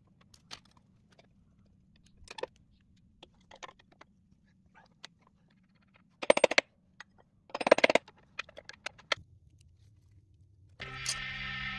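Two short bursts of a power impact tool, rapid hammering, about a second apart, as bolts are worked at the rear of a mini tracked skid steer, with a few light clicks and knocks around them. Guitar music starts near the end.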